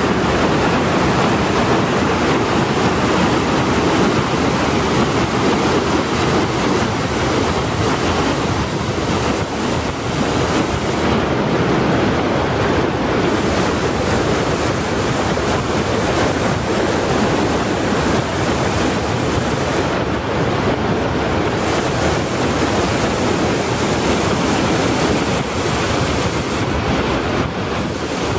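Whitewater rapids rushing loudly over rocks, a dense, unbroken roar of heavy, foaming flow.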